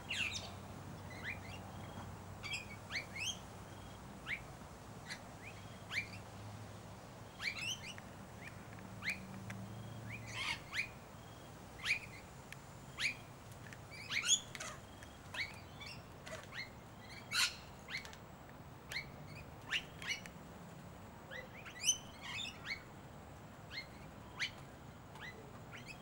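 Wild birds calling in a tree: short, sharp chirps and squawks, one or two every second or so, some louder than others, over a faint low hum.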